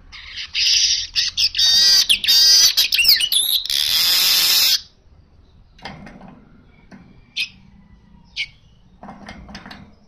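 Male weaver bird (manyar) singing a loud, buzzy, wheezing song with gliding notes for about four and a half seconds, then falling to quieter ticks and chirps with two short sharp high notes.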